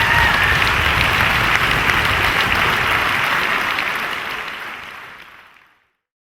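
Concert audience applauding, fading out and ending about five to six seconds in.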